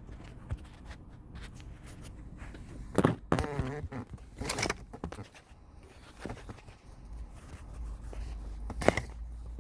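Handling noise from a camera being positioned close to the microphone: a few sharp knocks and clicks over a low steady hum.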